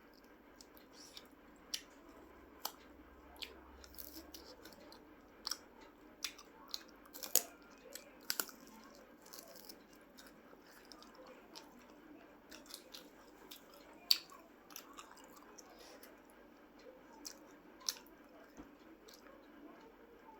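A person chewing food close to the microphone, with irregular sharp mouth clicks and smacks, a few louder than the rest.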